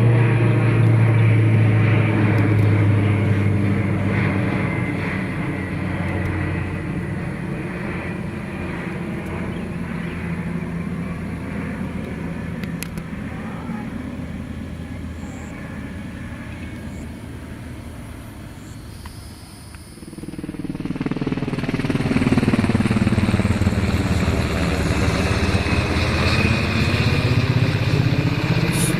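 Propeller airplane engine droning as it flies past and fades away; about twenty seconds in an engine drone rises sharply again and holds, its pitch sliding down and then back up.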